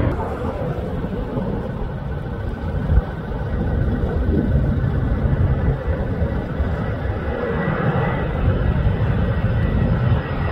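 Fighter jet engine noise overhead: a steady, heavy rumble with a faint high whine.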